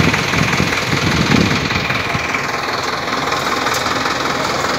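Tractor engine running steadily, with a heavier low rumble in the first two seconds.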